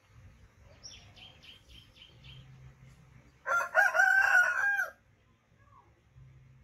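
A rooster crows once, about halfway through, a single call lasting about a second and a half that is the loudest sound here. Earlier, a small bird gives a quick run of about six high chirps.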